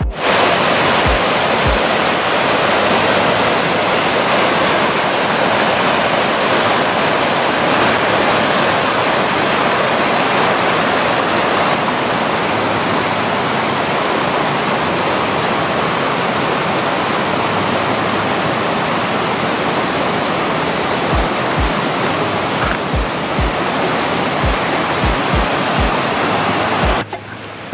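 Sour Milk Gill, a mountain waterfall and rocky beck, rushing loudly and steadily as the water cascades over boulders; the rush cuts off suddenly near the end. Background music with a low beat runs faintly underneath.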